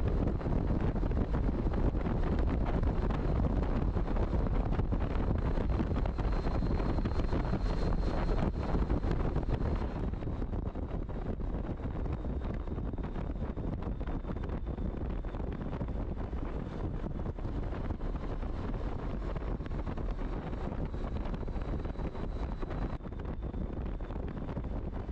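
Wind rushing over a helmet-mounted camera's microphone, mixed with motorcycle engine and road noise at highway speed. The noise drops somewhat about ten seconds in.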